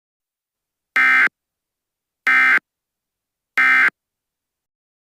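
Emergency Alert System end-of-message signal: three short, identical buzzy bursts of SAME digital data tones, just over a second apart, marking the end of the alert broadcast.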